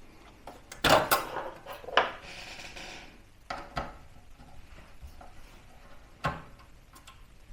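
Small hard clicks and knocks from a computer's NVMe SSD being removed from the motherboard: a cluster of knocks about a second in, a short scraping rub at around two to three seconds, then a few more sharp clicks.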